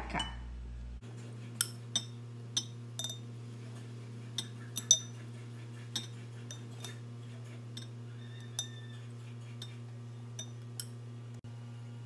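A spoon clinking against a glass bowl and a glass jar as chopped herbs are spooned from one to the other. There are about fifteen irregular sharp clinks, each ringing briefly, and the loudest comes about five seconds in.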